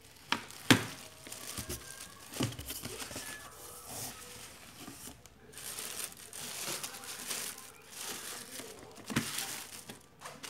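Clear plastic stretch wrap crinkling and tearing as hands pull it off a rigid plastic rice dispenser, with a few sharp knocks, the loudest about a second in.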